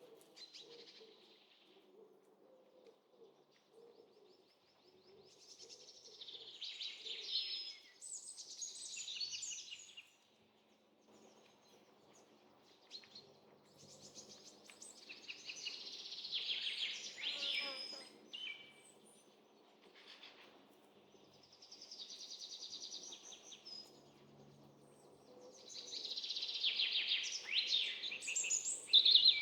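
Birds chirping and trilling in several separate bursts of a few seconds each, over faint outdoor background noise.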